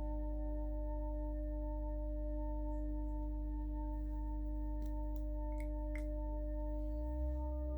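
Ambient background music of sustained, bell-like ringing tones over a low drone, the chord shifting near the end, with a few faint clicks in the middle.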